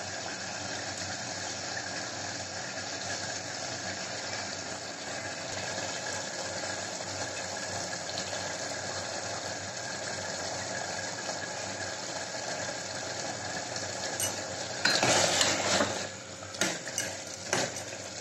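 Mutton keema sizzling steadily in an open aluminium pressure cooker on a gas flame as it is fried down. Near the end a steel ladle stirs and scrapes the pot, with a few short clinks against the metal.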